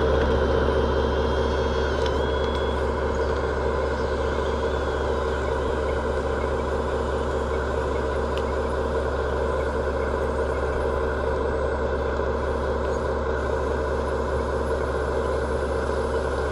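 RC tracked loader running steadily, an engine-like drone from its motors and sound unit as it drives and lifts a full bucket of gravel. A thin high tone sounds during the first few seconds.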